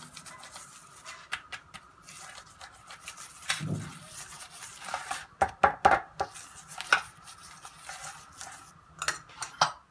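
A metal spoon spreading ghee over a roti on a stainless steel plate: soft scraping and rubbing with a run of sharp clinks of spoon against steel, thickest about five to seven seconds in.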